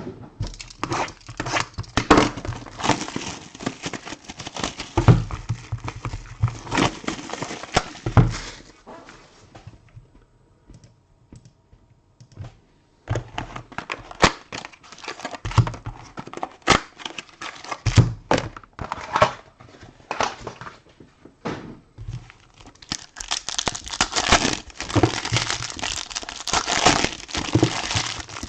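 Plastic wrapping on trading-card boxes being crinkled and torn open by hand, in irregular bursts of crackles and clicks. There is a nearly quiet pause in the middle, and a dense run of crinkling near the end.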